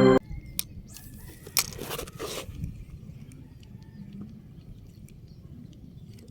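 Ambient intro music cuts off abruptly right at the start, leaving a low steady outdoor rumble with scattered faint clicks and a couple of brief rustles.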